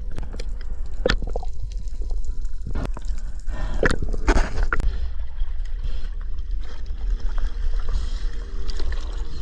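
Seawater gurgling and bubbling around a spearfishing camera in the water, with a steady low rumble and scattered clicks. The loudest bubbly rush comes between about three and five seconds in.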